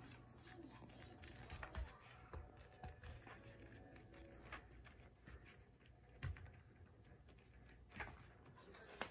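Faint, scattered light taps and clicks of a Labrador retriever puppy's paws moving about on foam floor mats as it plays with rubber balls, over a low steady room hum.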